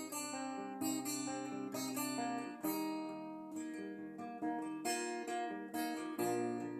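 Acoustic guitar being played, plucked and strummed chords ringing out one after another at an unhurried pace.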